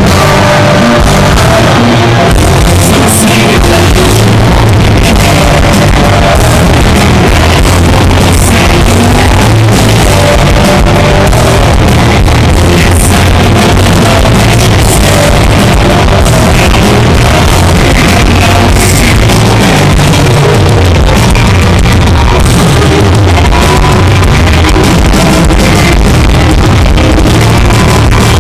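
Live rock band playing at full volume, with electric guitar, heard steadily loud from the crowd.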